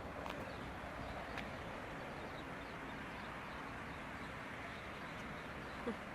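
Outdoor ambience: a steady background rush with faint bird chirps, a few light clicks and a brief falling squeak near the end.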